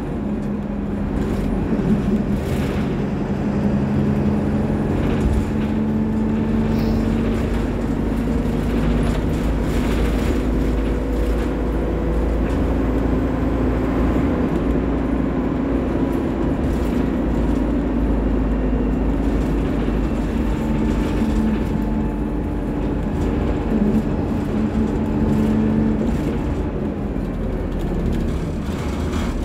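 Alexander Dennis Dart single-decker bus heard from inside the saloon while it drives: a steady engine and drivetrain drone with heavy low rumble, its pitch drifting slightly as the speed changes, and occasional knocks and rattles from the body.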